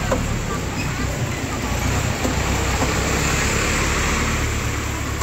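Engine of a small truck running as it drives slowly past close by, a low rumble with a rushing noise that swells and fades in the middle.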